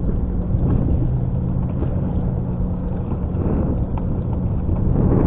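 Steady low hum of a boat's outboard engine idling, with wind noise on the microphone.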